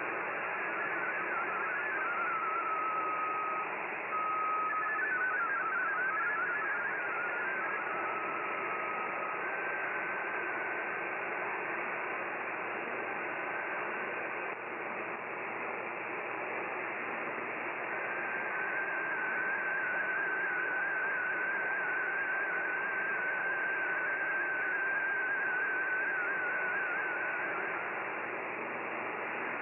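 MFSK32 digital data signal from a shortwave AM broadcast, heard through steady static hiss. For the first several seconds it is a warbling run of hopping data tones. Then it becomes a single wavering tone as an image is sent, weak for a few seconds midway and stronger from a little over halfway.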